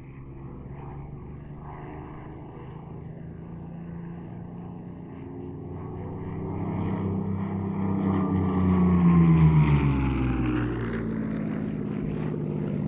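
Hispano Buchon's Rolls-Royce Merlin V12 engine running in flight. It grows steadily louder as the fighter approaches, then peaks and drops in pitch as it flies past about nine seconds in.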